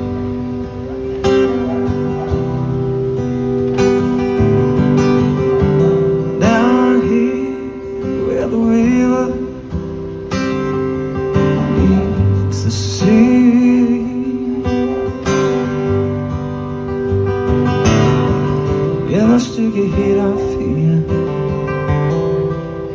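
Acoustic guitar strummed steadily, playing chords as the accompaniment to a song.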